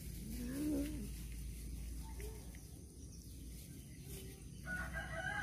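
Domestic cat growling over its food while eating, a wavering call rising and falling about half a second in, with a second, higher call near the end.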